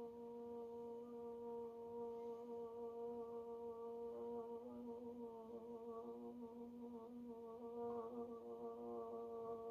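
A woman humming one long, steady note, holding it for as long as she can against a stopwatch in an endurance challenge; the pitch starts to waver slightly about halfway through.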